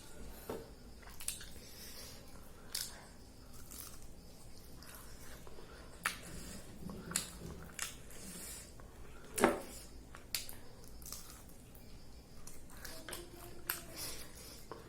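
A person eating close to the microphone: wet chewing and lip-smacking with scattered short clicks, the sharpest about nine and a half seconds in.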